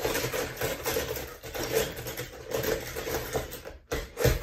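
A bowlful of die-cast Disney Cars toy cars being stirred and shaken by hand, the metal cars clattering and clinking against each other and the bowl. A louder knock comes near the end.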